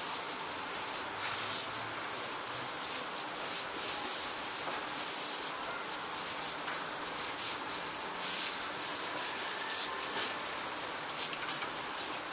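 Soft, scattered rustles and light scrapes of braided rope being pulled through and tightened by hand while weaving an isis knot, over a steady background hiss.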